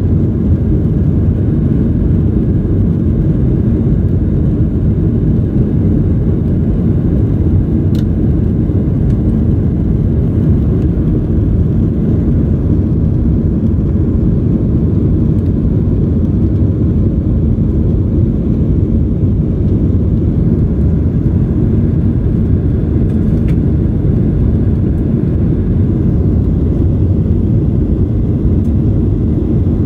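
Steady low rumble of a Boeing 737-800's CFM56-7B turbofan engines and airflow, heard inside the cabin from a seat over the wing as the jet climbs after takeoff.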